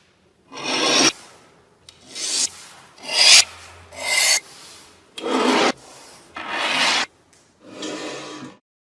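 Seven slow scraping strokes of hand filing or abrasive rubbing on the knife, about one a second.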